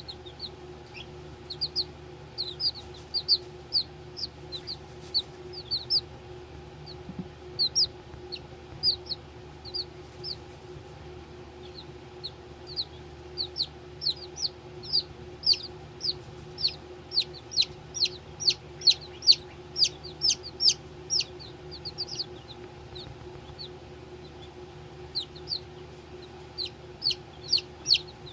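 Baby chicks peeping in short, high, downward-sliding calls, a few per second, busiest in the middle, over a steady low hum.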